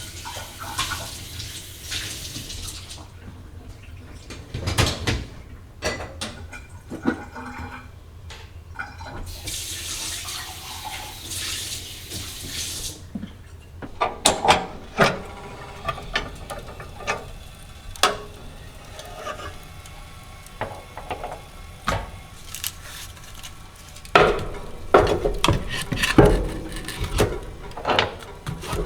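Kitchen tap running twice in short spells of a few seconds each, then a run of clinks and knocks from dishes and utensils being handled, busiest near the end.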